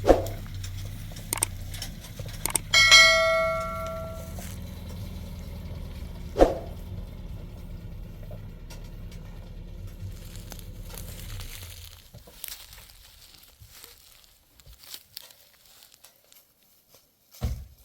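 A metal bell is struck once and rings for about a second and a half, under a steady low hum that stops about twelve seconds in. A few sharp knocks fall around it, and there is a low thump near the end.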